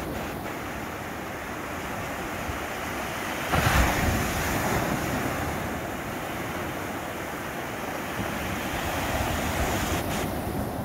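Black Sea surf: small waves breaking and washing up the sand as a steady rush. A wave crashes loudest about a third of the way in and slowly fades as its foam runs up the beach, and another swells near the end.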